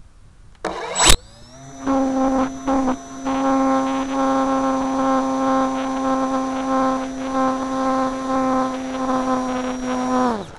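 Electric motor and propeller of a radio-controlled model plane, heard from a camera on board. It spins up with a sharp knock about a second in, then runs at a steady pitch with a thin high whine on top. Near the end it winds down and stops.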